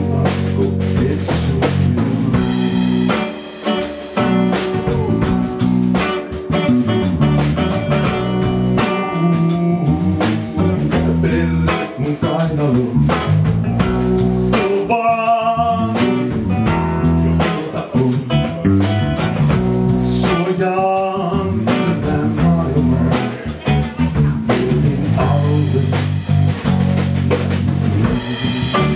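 Live blues-rock trio playing: guitar, electric bass and drum kit, with a man singing at times.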